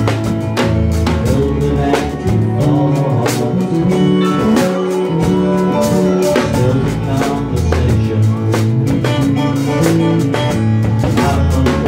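Live band playing: drum kit with cymbals, bass guitar and guitar, heard up close from the drums, with steady drum strokes under a moving bass line.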